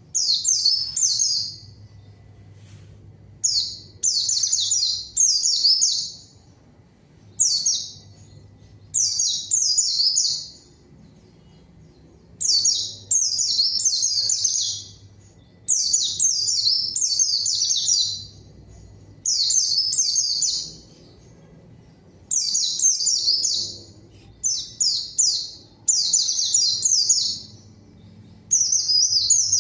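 A white-eye (pleci) singing in full, vigorous voice: repeated bursts of rapid, high twittering, each a second or two long, with short pauses between. It is a rival-calling song.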